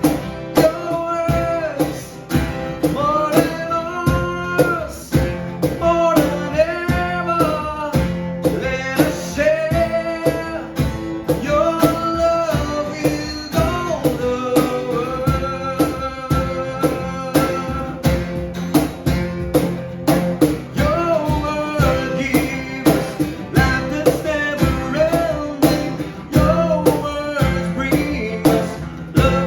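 Contemporary Christian worship song: a singer's melody over guitar and a steady drum beat.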